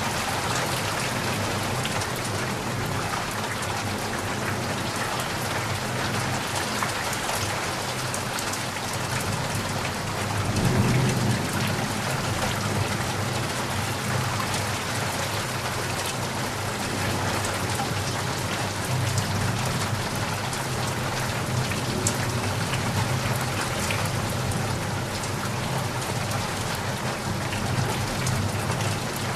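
Steady rain falling, an even hiss of drops on surfaces. A brief low rumble swells up about ten seconds in and fades back into the rain.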